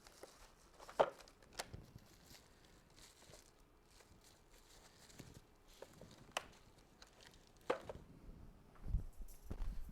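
A few scattered sharp clicks and light knocks from objects being handled, with some low thuds near the end.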